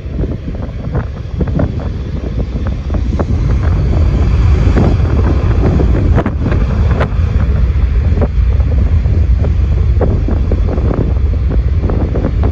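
Heavy wind buffeting the microphone, crackling and rumbling, over the low rumble of a C-17 Globemaster III's four jet engines as the aircraft moves along the runway. It grows louder from about four seconds in.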